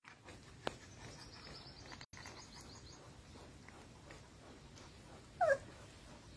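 Puppy giving one short, wavering squeak about five and a half seconds in, the loudest sound here. Before it come a sharp click and a fast run of high bird chirps in the background during the first few seconds.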